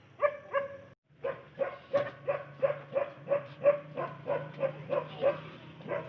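A dog barking repeatedly in a steady, fast series of about three barks a second, after a brief break about a second in.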